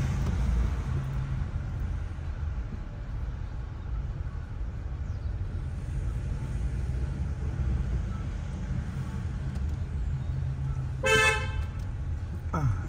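Inside a moving car: steady engine and road rumble, with one short car-horn honk about 11 seconds in.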